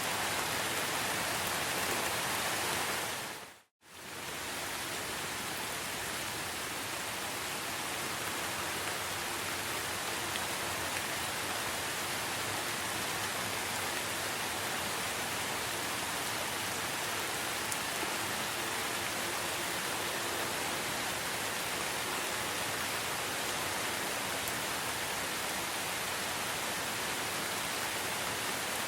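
Steady rain falling, an even hiss of many drops. About three and a half seconds in it fades out to silence for a moment and then fades back in, as at a loop join.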